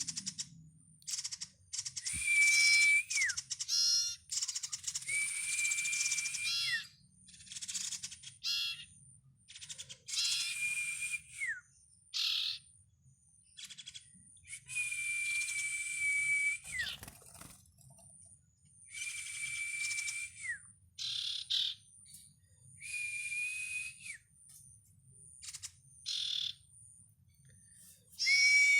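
Young common iora (cipow) calling repeatedly: each call is a long level whistle that ends in a quick falling note, with a rasping edge, repeated every two to four seconds.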